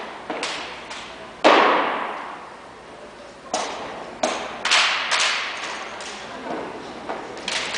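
Drill rifles of an armed drill team being slapped, caught and struck in unison: a series of sharp claps and thuds, about eight in all, echoing in a gymnasium. The loudest comes about a second and a half in, and a quicker cluster follows a little past the middle.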